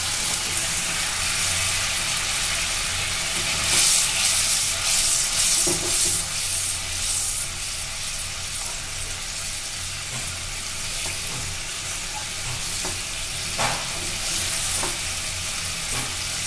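Thick paneer gravy bubbling and sizzling steadily in an aluminium kadai while a metal spatula stirs it. The spatula scrapes against the pan, most clearly about four to seven seconds in, with a few light clicks of metal on metal near the end.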